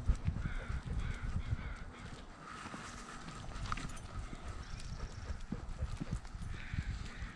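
Irregular thumps and knocks from a camera worn by a dog as it moves about, its steps and body jolting the mount.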